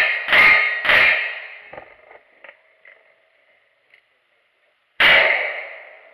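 Two lever-action rifle shots in the first second, each dying away over about half a second, then a few faint clicks and knocks as the rifle is set down and a single-action revolver is taken up, a short quiet, and a single revolver shot about five seconds in.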